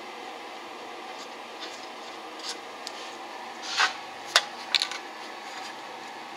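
Handling noise of a carburetor and sheet-metal air box being turned over: a short scrape about four seconds in, then a sharp metallic click and two quick clicks, over a steady background hiss.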